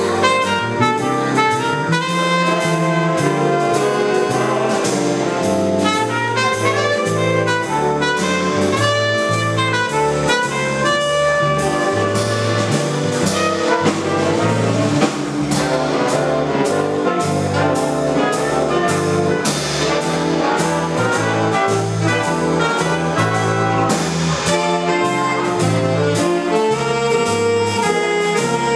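Live big band playing swing: saxophones and trumpets carry the tune over a moving bass line and a steady drum beat.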